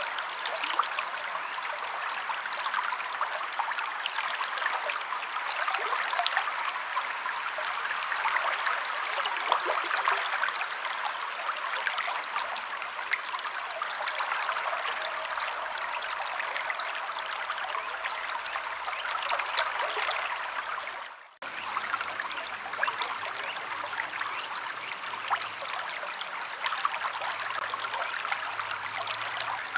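A stream splashing and trickling steadily over rocks. About two-thirds of the way through, the sound dips out for a moment and then resumes.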